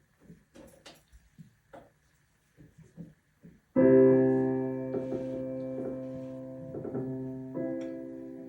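A few faint clicks and knocks, then about four seconds in a piano chord is struck and held, slowly fading, with further chords following: the start of a song's piano intro.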